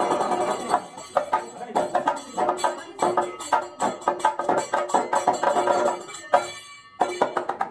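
Kathakali percussion accompaniment playing a quick rhythm of drum strokes and bright metallic clinks, with short ringing tones recurring. It breaks off briefly near the end.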